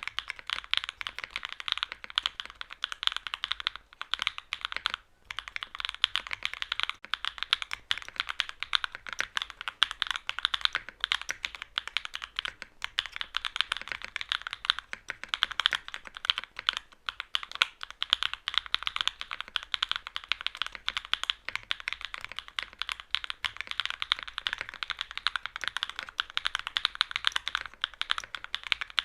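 Fast, continuous typing on a mechanical keyboard with hand-lubed Cream Soda linear switches, a carbon fiber plate and no foams: a dense stream of soft key clacks, briefly pausing about five seconds in.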